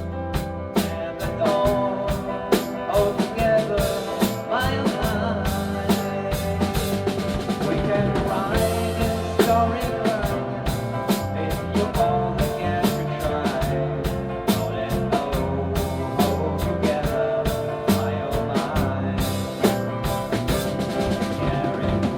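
A rock band of guitar, bass guitar and drum kit playing a song, with a steady drum beat.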